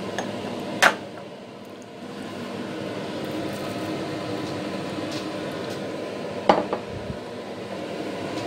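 Kitchenware clinking twice, once about a second in and again past six seconds, as a glass bowl of grated carrot and chopped onion is handled and tipped into a steel soup pot. A steady hum runs underneath.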